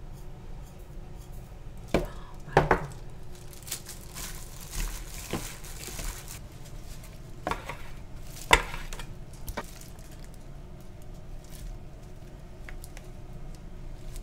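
Kitchen handling at a mixing bowl: a handful of sharp taps and knocks from a knife and seasoning containers against a plastic mixing bowl, loudest about eight and a half seconds in, with a soft rustle in between.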